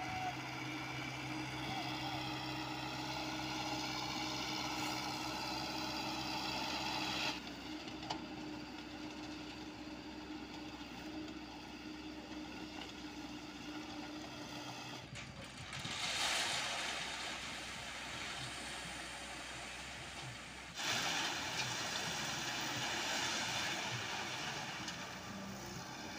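Diesel engines of an excavator and a concrete mixer truck running steadily. Louder stretches of rushing noise come about midway and again near the end.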